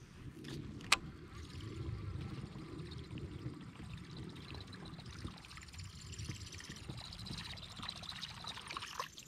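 Water trickling and lapping lightly around a kayak's hull as the boat moves, with one sharp click about a second in.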